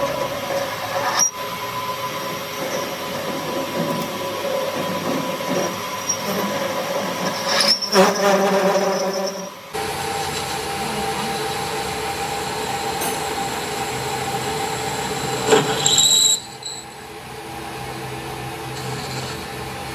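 Metal lathe turning a metal part, with the cutting tool screeching steadily against the work. The sound changes abruptly about halfway through, with short louder screeches around 8 and 15 seconds.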